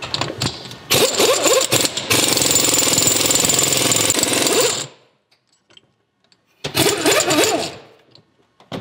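Air impact wrench hammering on a bearing puller's forcing screw, pulling a carrier bearing off a differential carrier: a few short bursts, then a steady run of about three seconds that stops suddenly.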